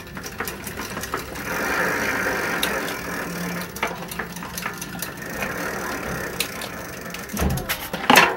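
Mountain bike drivetrain ticking and ratcheting as the newly fitted square-taper crankset is turned by hand, with a louder knock near the end.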